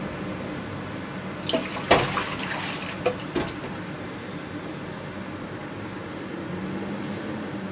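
Broth with chicken and carrots boiling in a wok, a steady bubbling hiss over the stove's hum. A few sharp clicks come in the middle, the loudest about two seconds in.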